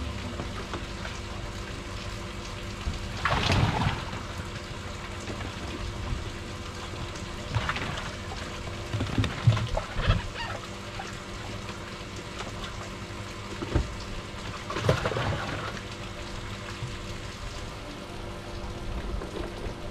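Water splashing and sloshing in a bass boat's livewell as bass are grabbed out of it by hand, in several short bursts about 3, 8, 9–10 and 15 seconds in, over a steady faint hum.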